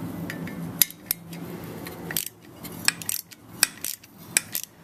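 Metal hand tools and a small bolt clinking against a small engine as the bolt is taken off: about ten irregular sharp metallic clicks.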